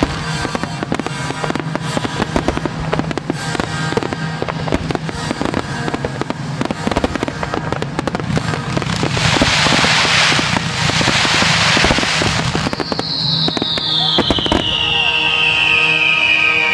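Fireworks finale: a dense run of bangs and crackles throughout, with a hissing spell around ten seconds in. Music plays beneath, and a long falling whistle comes near the end.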